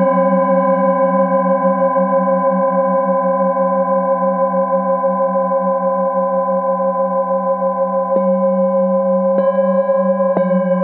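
Metal singing bowls ringing with a long sustained tone and a low hum that wavers. Near the end, a wooden mallet strikes the bowls three times, each strike adding a new ringing tone.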